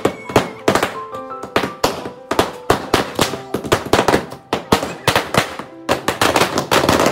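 A string of firecrackers going off in a rapid, uneven run of sharp bangs, thicker near the end, with dance music playing underneath.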